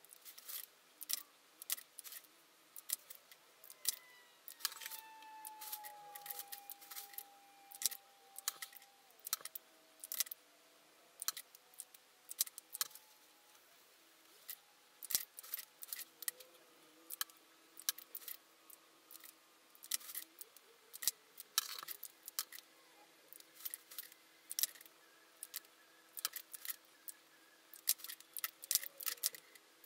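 Lipstick tubes clicking and clacking against each other and against the white grid organizer drawer as they are picked out and set back down: many sharp, irregular clicks with short pauses between them.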